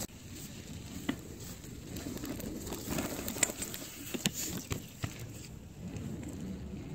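Mountain bike rolling, partly over wooden deck boards: a low rumble with scattered sharp clicks and rattles.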